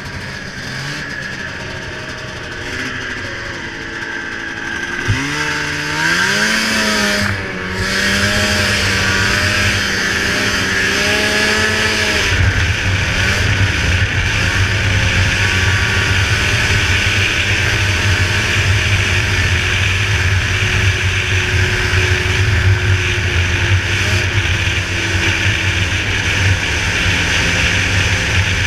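Ski-Doo 583 snowmobile's two-stroke twin engine on pipes, revving up about five seconds in and then running steadily at speed.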